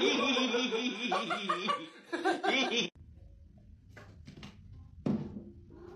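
A person exclaiming and laughing, cut off abruptly about halfway through; then a few faint short knocks.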